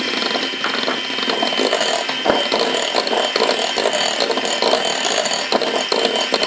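Electric hand mixer running steadily, its twin beaters whirring through cake batter and clicking and rattling against the sides of a glass bowl over a constant high motor whine.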